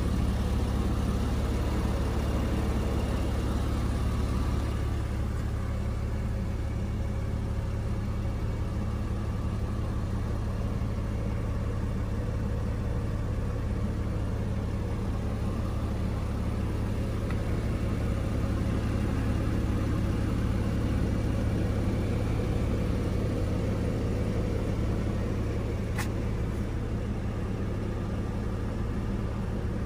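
Porsche 996 Carrera's 3.6-litre flat-six engine idling steadily, with one sharp click near the end.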